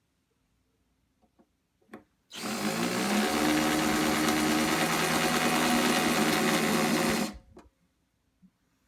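Electric drill with a 3/8-inch bit running for about five seconds, boring one of the full-size mounting holes: it rises in pitch as it spins up, holds steady, then stops suddenly. A few light clicks come before it.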